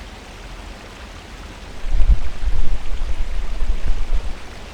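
Steady hiss of running water, like rain or a stream, with a low, uneven rumble from about two seconds in until near the end.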